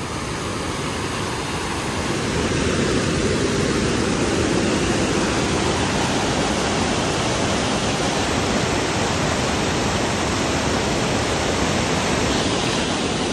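Whitewater cascade rushing over and between boulders, a steady dense rush of falling water that grows louder about two seconds in and then holds level.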